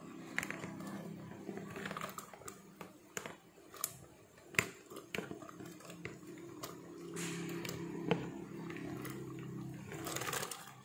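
Kumquats dropping from a plastic bowl into a pot of boiling water: scattered plops and splashes over the steady sound of the boiling pot, with a rush of splashes near the end as the rest slide in together.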